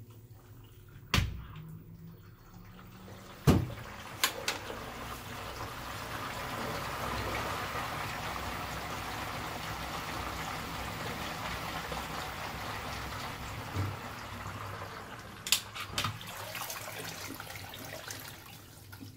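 LG Twin Wash Mini washer running its wash cycle, with water rushing and sloshing steadily in the tub. A couple of sharp knocks from the lid come near the start, and a few clicks near the end.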